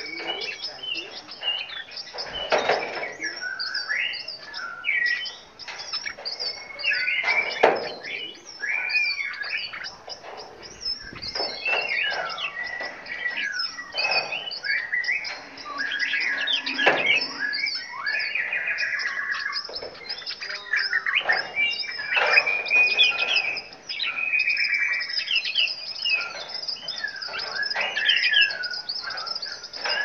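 A mixed flock of caged songbirds chirping and singing at once: overlapping chirps, whistles and trills with no break.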